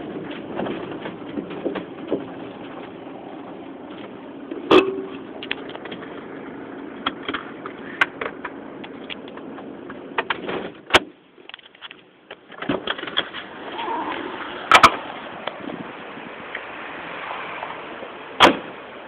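Car running, with its steady hum and road noise, broken by several sharp knocks or clicks. The running sound drops away for about a second and a half around eleven seconds in, then comes back.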